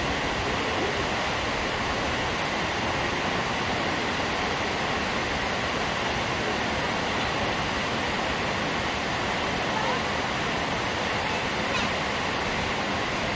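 Naruko Dam's curtain-style spillway release: water pouring over the crest and falling down the dam face into the basin below, a steady rushing sound that does not change.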